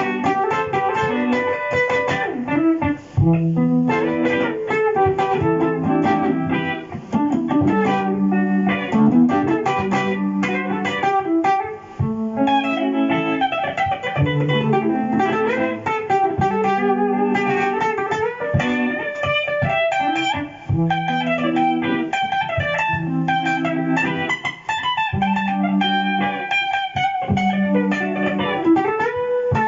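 Electric guitar played through a Boss GT-100 multi-effects unit: a jazz-style improvised single-note melody over a repeating looped chord pattern.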